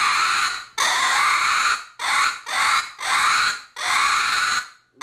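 Raccoon chatter imitated on a single-reed coon squaller call: a run of about six fluttering squalls, each half a second to a second long, with short breaks between them. The flutter is made by growling "gah" into the call.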